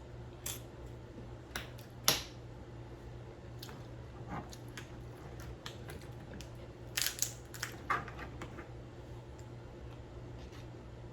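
Seafood boil being eaten: scattered sharp clicks and cracks of crab and mussel shells being broken and handled, with the loudest crack about two seconds in and a quick cluster of cracks near seven to eight seconds, over a steady low hum.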